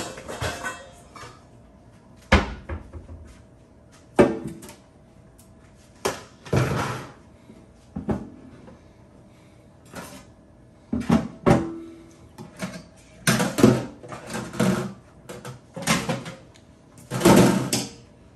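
Kitchen handling sounds: about a dozen separate knocks and clatters of cookware and cupboard doors with quiet gaps between them, coming more often in the second half.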